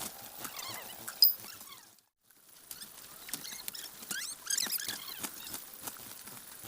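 A crowd of Joper (Ayam Jawa Super) chicks cheeping in many short high chirps, with the patter and scratching of their feet and a sharp click about a second in.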